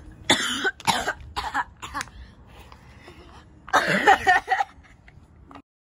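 Someone coughing: a few short coughs in the first two seconds, then a louder bout about four seconds in.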